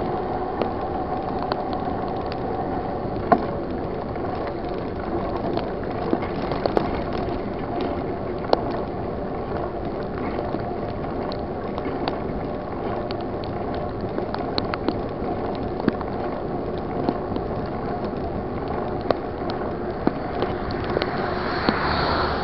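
Mountain bike rolling along a wet road in heavy rain: a steady whirr and hiss from the wheels and drivetrain, with scattered sharp clicks and taps. A car's noise swells up near the end.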